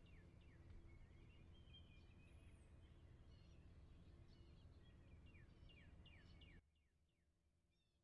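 Faint birdsong: many short, quickly repeated falling chirps over a low steady hum. The hum drops away suddenly near the end, leaving the chirps fainter.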